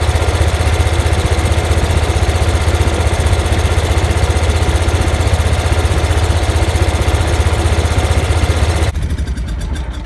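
The Lincoln Ranger 250 welder's gasoline engine running steadily, heard close up, with a strong low hum. The sound drops in level about a second before the end.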